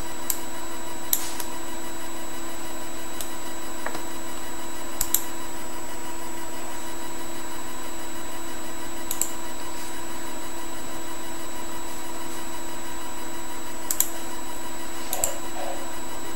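A steady electrical hum and hiss from the recording setup, with several short faint clicks spread through it, typical of a computer mouse being clicked while placing objects in the software.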